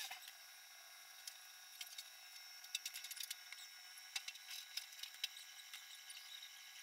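Faint, irregular small clicks and soft taps of a brush and fingers working the hair of a clay figure, over a low steady hiss.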